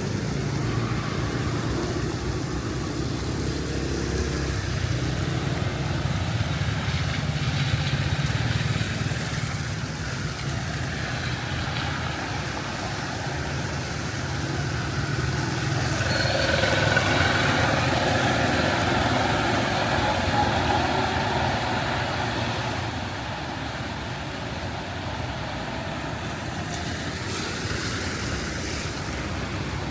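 Street traffic: vehicle engines running steadily, with a louder vehicle passing about halfway through.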